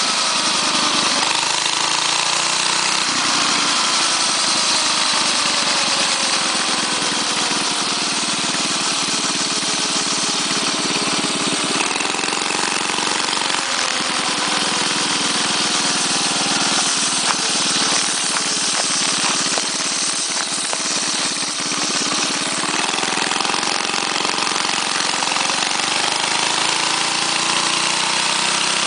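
Straight-piped 6.5 hp Tecumseh OHV single-cylinder four-stroke engine on a mini bike, running under load while riding. Its pitch falls as the throttle is eased off, dips again partway through, and climbs as the throttle opens near the end.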